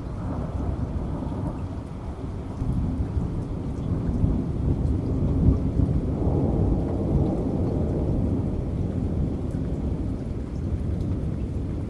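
Low rolling thunder rumbling over steady rain, swelling about a third of the way in and easing off in the second half.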